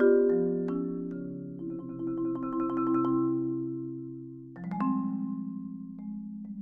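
Solo marimba playing slow, low sustained chords. A loud chord comes at the start and another about four and a half seconds in, each fading away.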